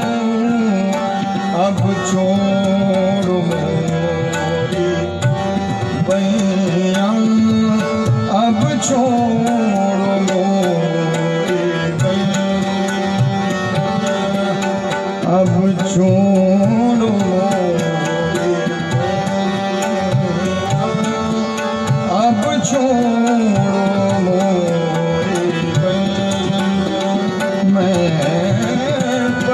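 Live Hindustani thumri: tabla playing continuous strokes under sustained harmonium notes, with a male voice sliding through the melody.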